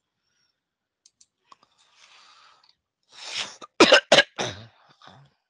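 A person coughing: a breath in, then a quick run of three sharp coughs about four seconds in, with a weaker one after.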